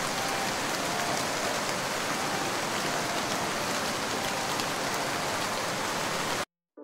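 Steady rushing wind and road noise through the open window of a moving bus, cutting off suddenly near the end.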